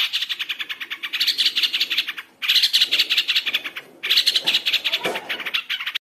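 Long-tailed shrike (cendet) singing in three long runs of rapid, evenly repeated chattering notes, each about two seconds long, with brief breaks between them.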